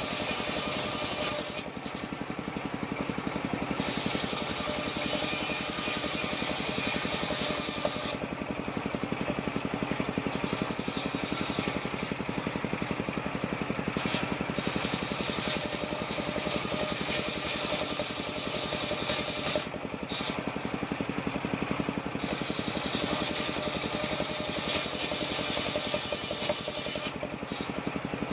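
Large circular saw running steadily while cutting waru (sea hibiscus) wood lengthwise into thin strips, the blade's hiss rising in several stretches as boards are fed through and easing between passes.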